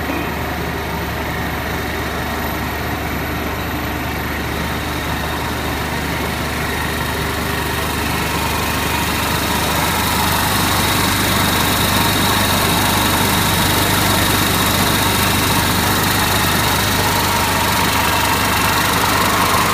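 Twin-screw extruder corn-puff production line running, a steady machine drone of motors with a constant low hum and hiss. It gets a little louder about halfway through.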